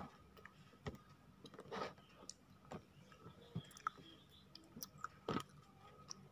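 A child biting and chewing raw honeycomb close to the microphone: soft, wet chewing with irregular small clicks of the mouth and a louder bite just after five seconds.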